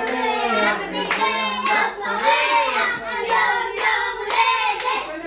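A group of children singing a song together, clapping along in time about twice a second.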